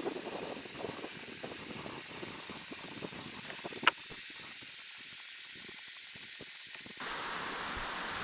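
Steady hissing noise with a fluttering low rumble in the first half, a single sharp click about four seconds in, and an abrupt change in the hiss about seven seconds in.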